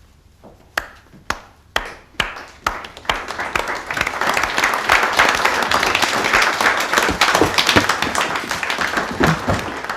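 A few single hand claps, about two a second, then a crowd breaking into full applause from about three seconds in.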